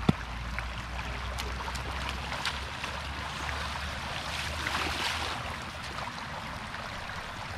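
Shallow floodwater rushing across a road and splashing around wading bare feet, with a single sharp knock at the very start as a wooden stake is struck. The splashing swells louder about four and a half seconds in.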